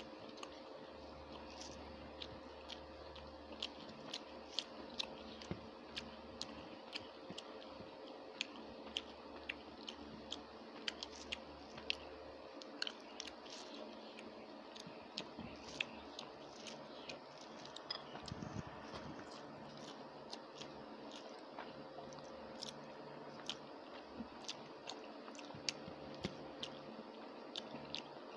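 Close-miked eating sounds: chewing with frequent short wet mouth clicks and smacks, irregular at a couple a second, as a person eats rice and curry by hand, with fingers squishing the rice on the plate.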